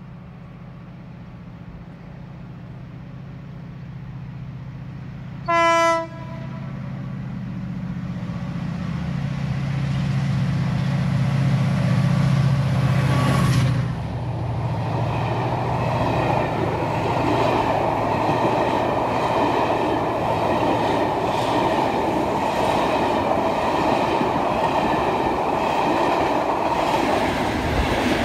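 Diesel locomotive hauling a passenger train approaching and passing at speed: its engine note grows louder, with one short horn blast about six seconds in. After the locomotive goes by at about fourteen seconds, the coaches follow with a steady wheel rumble and rattle, and a Class 37 diesel is at the rear.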